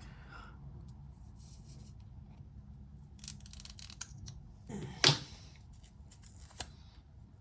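Scissors snipping through the plastic wrapper around an oxygen sensor's wire bundle: a few light clicks, then one loud snip about five seconds in and a smaller one after it.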